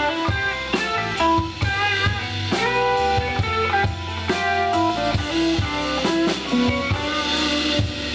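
Live blues-rock band playing an instrumental passage without vocals: electric guitar notes, some bent and wavering, over bass guitar and a drum kit keeping a steady beat.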